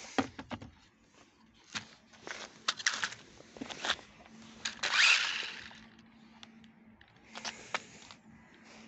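Tamiya TL-01 radio-controlled car's electric motor and tyres on asphalt in short bursts, the loudest a swelling whine about five seconds in, among scattered clicks and knocks.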